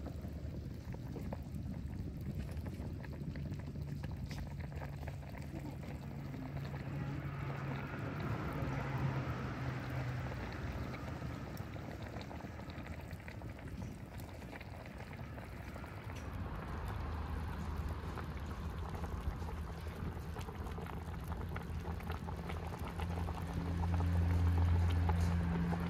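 Stuffed eggplants and peppers in tomato sauce bubbling in a metal pan over a wood fire, with small crackles from the fire. A steady low hum runs underneath, louder near the end.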